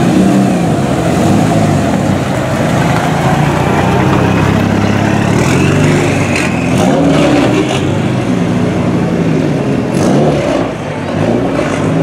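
Mitsubishi Lancer Evo VI rally car's turbocharged four-cylinder engine running at low speed with repeated throttle blips, the revs rising and falling again and again. A few sharp cracks stand out near the middle and near the end.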